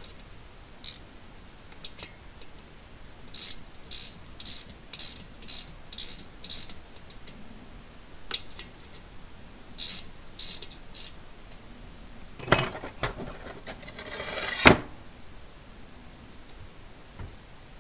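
Socket ratchet clicking on its back-strokes as a threaded stud is wound into a VW air-cooled cylinder head. There are two runs of strokes, about seven a couple of seconds apart from the second run, which has three. A longer scraping rustle follows, ending in a sharp click.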